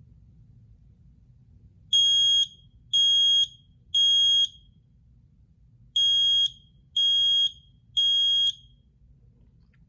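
Kidde i1040 ionization smoke alarm sounding its test alarm: two rounds of three loud, high-pitched beeps about a second apart, in the temporal-three pattern, with a pause between rounds. A clean test, without the odd noises this model is known for.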